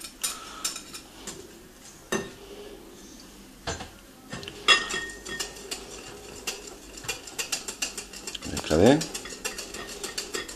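Wire whisk clicking rapidly against a glass bowl, mixing beaten egg whites into a yolk-and-mascarpone cream, starting a little before halfway in; before that come a few scattered knocks from the bowls being handled. A short vocal sound near the end.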